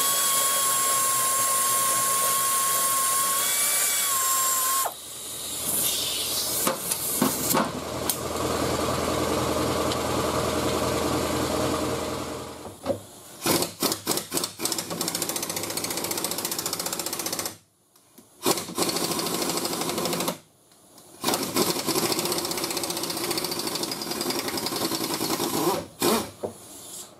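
Handheld power driver with a socket spinning out the bumper cover's fasteners: one steady whining run of about five seconds, then several shorter runs with stops in between.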